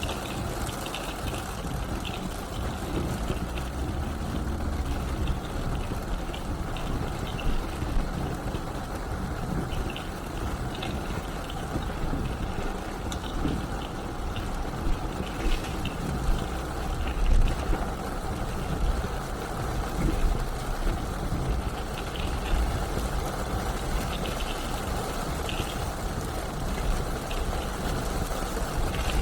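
A car driving on a wet road in the rain: steady engine and road rumble with the hiss of the tyres on wet pavement, and scattered light taps.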